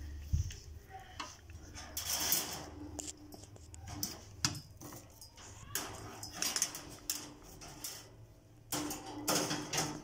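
Stainless steel feed cups clinking and scraping against the wire of a birdcage and its ring cup holders, in several short bouts of rattling.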